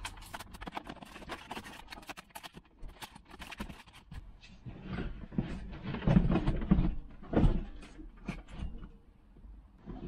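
A Thetford three-way fridge being worked out of its tight cabinet cavity: a quick run of small clicks and crackles, then heavier knocks, bumps and scraping from about five to eight seconds in.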